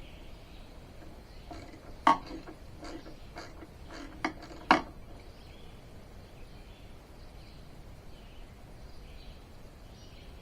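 Metal tools and hardware clinking and knocking while being handled, a handful of short sharp clinks with the loudest about two seconds in and just before the five-second mark, then quiet handling over a faint steady background.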